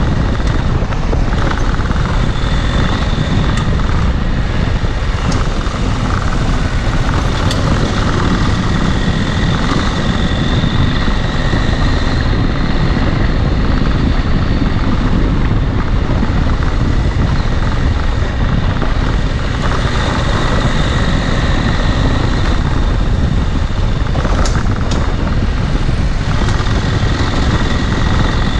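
Dual-sport motorcycle being ridden, its engine running steadily under heavy wind rumble on the microphone.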